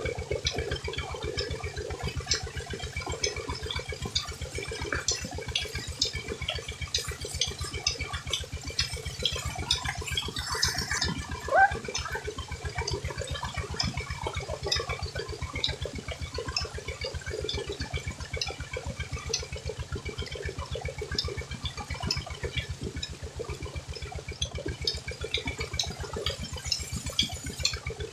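Tubewell water gushing steadily from a wide pipe and splashing onto a woven charpai bed and the person sitting in the stream, with a fast, regular low throb underneath. One louder splash or slap near the middle.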